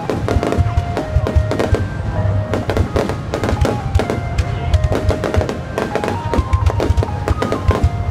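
Fireworks bursting and crackling, many sharp cracks in quick succession with a deep rumble, over music with a held melody.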